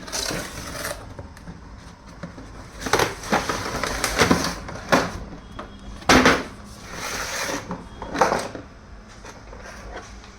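A toy monster car's box being opened and handled: irregular bursts of rustling, scraping and clattering, about seven in all, the loudest a little past the middle.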